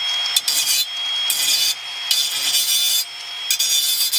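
Power tool working wood: a steady motor whine under five rough bursts of work, each about half a second to a second long.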